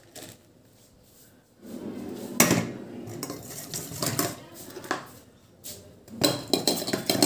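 Steel bowl being handled by hand: clinks, knocks and scraping of metal as a hand works in the bowl of yellow liquid. There are two spells, from about a second and a half in to about five seconds, and again near the end.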